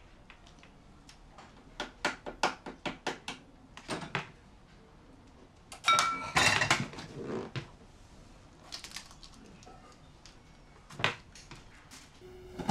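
Ceramic bowls and utensils handled on a kitchen counter: a run of light clicks and knocks, then a louder clatter about six seconds in that opens with a brief ring, and a single knock near the end.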